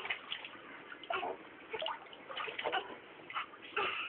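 Water splashing and dripping in a washing machine tub as a child bathes in it, in a string of small irregular splashes.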